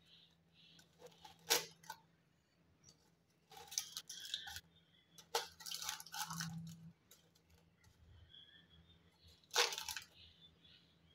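Aluminium foil crinkling and tearing as it is pulled open with a fork, in several short rustles; the loudest come about a second and a half in and near the end.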